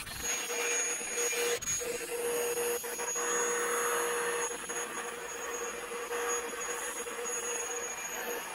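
Stick vacuum cleaner running steadily, a constant whine over a broad rushing hiss, as its floor head is passed over a cat's fur.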